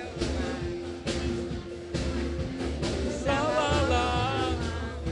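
Live axé band music with a steady beat about once a second and a bass line; a voice sings a wavering melody from about three seconds in.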